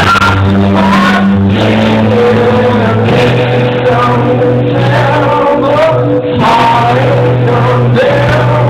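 Live rock band playing loudly: drums, electric guitar and bass guitar, with a man singing over them. The bass holds long low notes that change every second or so.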